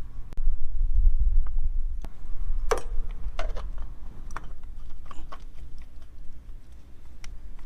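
Scattered light clicks and taps of a new oil filter being handled and threaded on by hand, the sharpest click a little under three seconds in, over a steady low rumble.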